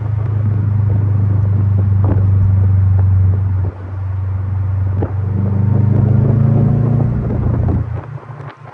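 2021 Subaru WRX STI's turbocharged 2.5-litre flat-four, breathing through a Tomei aftermarket exhaust, running under load with a deep steady rumble. It breaks off briefly twice, about three and a half and five seconds in, builds again, then eases off near the end.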